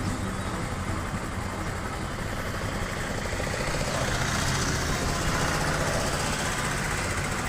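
A vehicle's engine idling steadily, a low running hum under a wash of noise.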